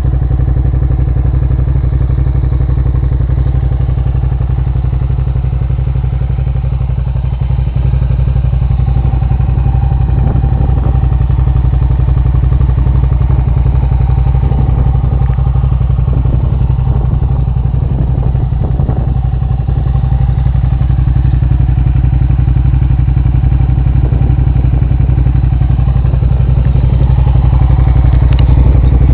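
Suzuki SV650's V-twin engine running loud and steady, its pitch holding level without revving, with a few faint knocks in the middle.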